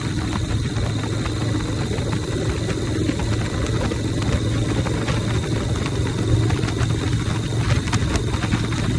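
Harley-Davidson Shovelhead V-twin engine of a chopper motorcycle running steadily, with no big change in revs.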